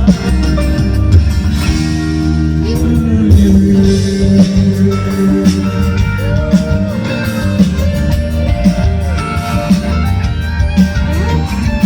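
Music: an instrumental passage of a Latin pop-rock ballad, with a gliding melodic lead line over bass, guitar and a steady drum beat.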